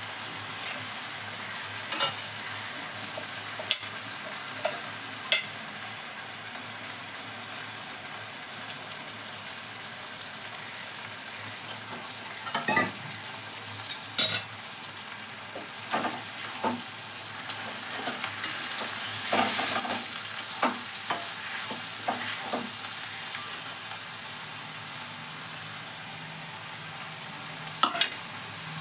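Food frying in a steel kadai on a gas stove, a steady sizzle that swells briefly about two-thirds of the way through. A metal spatula stirs and scrapes through it, clinking against the pan every few seconds.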